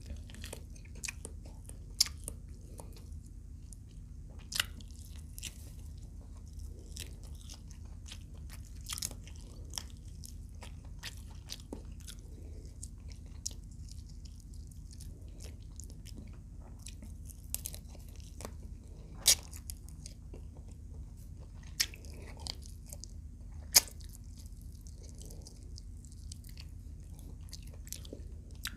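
Close-miked eating of fried adobo quail: irregular crisp crunches and chewing, with a few sharp, louder crunches scattered through, over a steady low hum.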